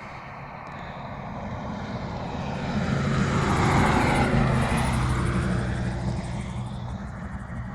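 An engine passing by, swelling to its loudest about four seconds in and then fading, over a steady low engine drone.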